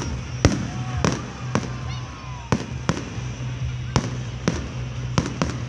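Aerial fireworks shells bursting one after another: about ten sharp bangs, roughly two a second.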